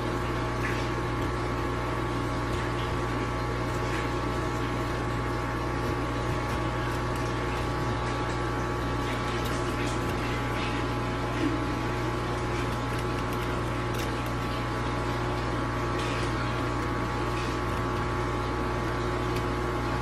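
A steady low machine hum with several fixed tones. Over it come faint, scattered clicks and scrapes from a kitchen knife cutting along the back of a Korean rockfish, beside its dorsal fin spines.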